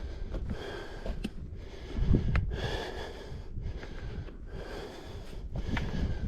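A person breathing hard in slow, heavy breaths about every two seconds, with a few sharp clicks and low rumble from walking on a trail.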